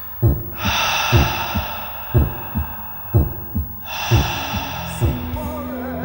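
A heartbeat sound effect: low double thumps about once a second. Over it come two long, heavy breaths like a man gasping. Near the end, music comes in with a wavering tone.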